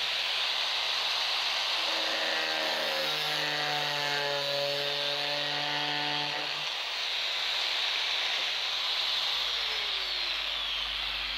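Handheld angle grinder running and cutting through the plastic casing of a fan capacitor, a steady whining noise with clear tones while the disc is in the cut; its pitch falls near the end.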